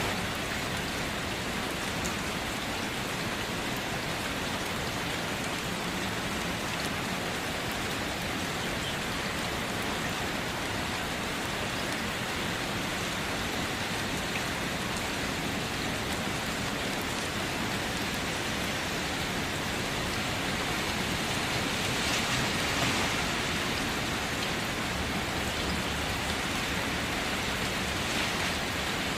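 Steady rain falling, an even dense hiss with faint scattered drop ticks, swelling slightly about three-quarters of the way through.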